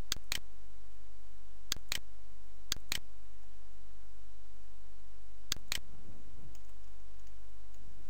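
Computer mouse button clicking in four quick pairs, each a press and release or a double-click, over a steady low hum.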